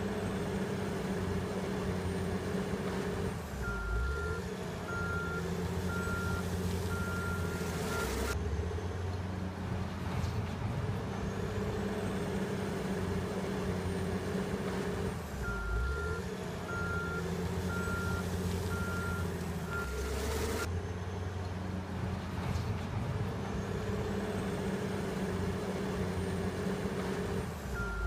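Caterpillar 980 wheel loader's diesel engine running under load, with its reversing alarm beeping steadily while it backs up, twice, starting again near the end. Each time the beeping stops, the engine note changes abruptly as the loader shifts to drive forward.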